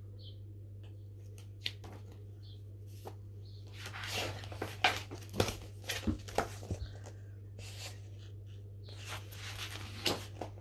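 Paper rustling and light clicks as a large paperback picture book is handled, held up open and a page turned, the rustles coming in scattered bursts about four seconds in and again near the end. A steady low hum runs underneath.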